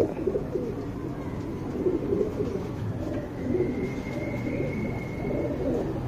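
Domestic pigeons cooing, a continuous low warbling murmur of several birds overlapping.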